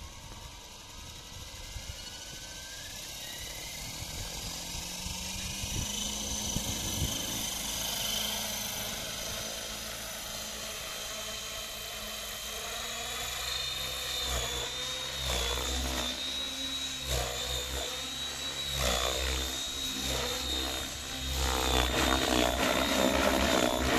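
Align T-Rex 550X radio-controlled electric helicopter in flight: the motor's whine and the rotor blades' beat climb in pitch over the first seconds as it lifts into a hover. From about halfway a steady, wavering high whine and a heavy low rotor thump take over during fast passes and banked turns, getting louder near the end.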